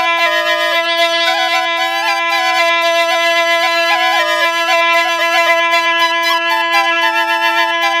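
Alghoza, the paired double flute, playing continuously: one pipe holds a steady drone while the other plays a quick melody that steps up and down above it.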